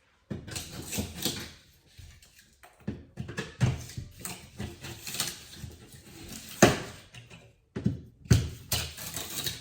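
Irregular knocks, scrapes and rattles of pieces being handled and fitted at a freshly cut opening in a metal door skin, with two sharper knocks near the end.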